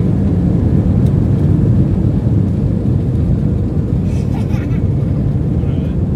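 Cabin noise of a passenger jet on its takeoff roll: the engines at takeoff power and the wheels on the runway make a loud, steady low rumble.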